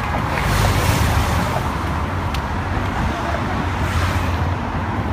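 Race-convoy team cars and a motorcycle driving past at low speed: a steady engine and tyre rumble that swells as the cars go by about a second in, and again as the motorcycle passes near the end.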